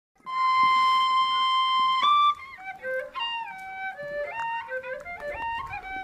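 Background music: a solo flute holds one long note, then plays a melody with sliding notes from about two seconds in.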